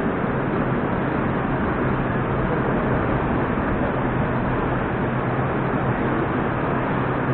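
Steady platform noise in an underground metro station beside a Moskva-2019 train standing with its doors open: an even rushing noise over a constant low hum, with no sharp events.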